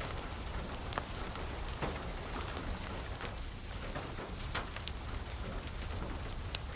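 Steady rain falling, with irregular sharp crackles and pops from a fireplace fire scattered through it.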